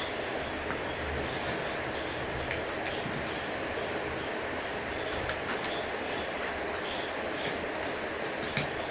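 Steady hissing background noise, with a run of quick high-pitched chirps that comes back every few seconds, and a few light clicks.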